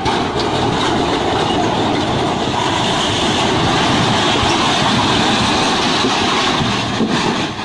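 Concrete wall panels collapsing under a tipped-over concrete mixer truck: a long, loud, dense crash of breaking and falling concrete with many small cracks and knocks, dying away near the end.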